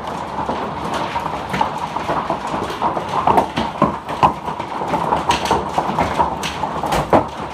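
Hailstones pelting down on roofs and ground: a dense, irregular clatter of hard impacts.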